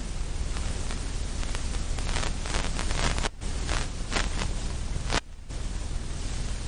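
Steady static-like hiss that drops out briefly twice, about halfway through and again near the end, with a few faint clicks in it.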